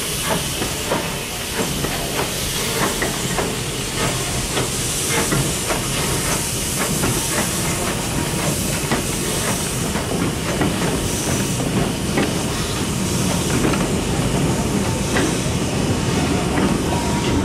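LB&SCR A1X 'Terrier' tank engine hissing steam as it hauls a train of four-wheeled goods wagons past, the wagons' wheels clicking and clanking irregularly over the rail joints.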